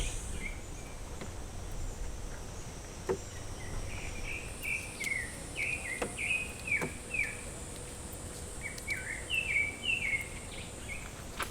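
A bird calling in quick runs of short, falling chirps, over a steady high insect buzz that drops away at the start and returns about four seconds in. A few faint knocks are heard.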